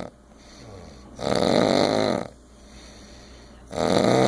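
Loud, rhythmic snoring. One rattling snore of about a second comes a little over a second in, and another begins near the end, with quiet breathing between them.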